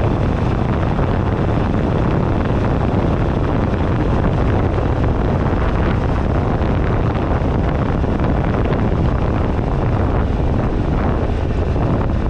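Heavy wind noise buffeting a handlebar-mounted action camera at riding speed, over the low, steady running of a 2008 Buell Ulysses XB12XT's air-cooled V-twin engine.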